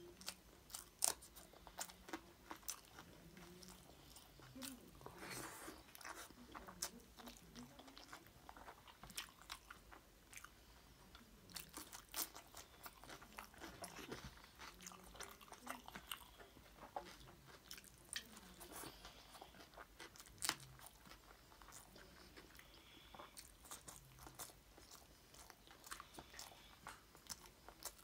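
Close-miked eating of chicken curry and rice by hand: faint chewing with frequent short, sharp wet clicks and mouth smacks.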